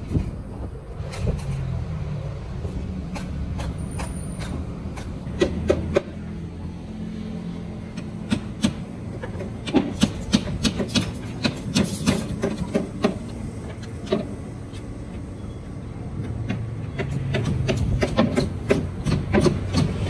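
Irregular sharp knocks of hammering on timber formwork, thickest in the middle and near the end, over a steady low rumble of road traffic.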